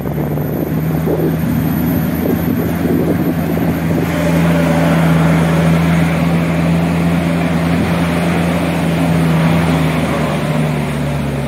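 Engine of an open-sided passenger shuttle running steadily while under way, heard from aboard: a steady low hum with road and wind noise. It eases off a little near the end.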